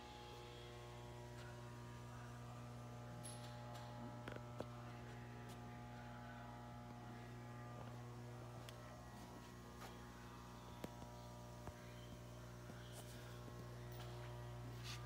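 Faint steady electrical hum: a low drone with a stack of fainter steady tones above it, broken by a few light clicks and taps.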